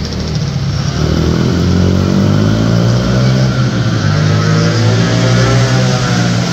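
Small engines of youth 50/90cc quads running on the track, revving up and easing off so the pitch rises and falls. The sound gets louder about a second in.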